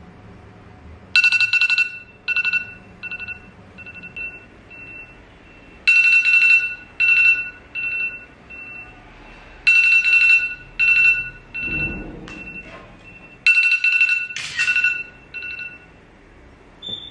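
Smartphone alarm ringing: a two-tone chiming melody whose phrases begin loud and echo away, repeating about every four seconds, until it stops about sixteen seconds in.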